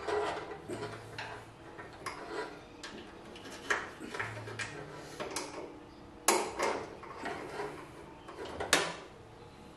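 Irregular metallic clicks and clanks as a parking brake cable and its end fittings are worked into place against the car's frame and brake linkage. Two sharper knocks stand out, about six and a half and nearly nine seconds in.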